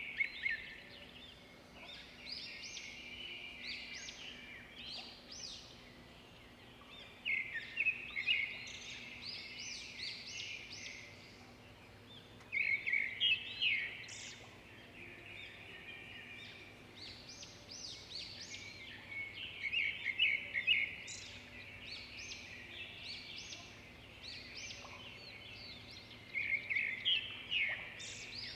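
A small bird chirping in bouts of quick, high notes that come every several seconds, with softer chirps between them, over a faint steady low hum.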